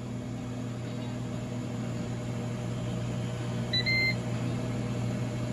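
Ninja Foodi FD401 Deluxe XL cooker running in air-crisp mode, its fan giving a steady hum. About four seconds in there is a short electronic beep, a brief chirp then a slightly longer tone, as the cook timer reaches zero and the cycle finishes.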